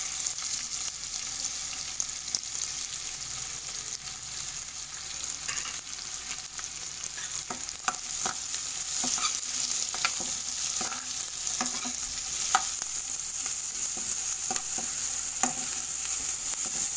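Chopped onions frying in butter in a metal pot, a steady sizzle throughout. From about halfway through, a spoon scrapes and knocks against the pot in scattered clicks as the onions are stirred.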